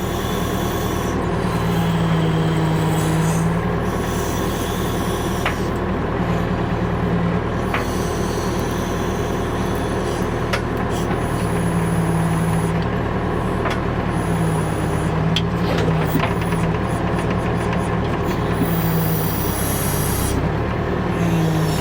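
Backhoe's diesel engine running, rising in pitch several times as the hydraulics take load while it digs, with a few sharp metal clanks from the bucket and linkage.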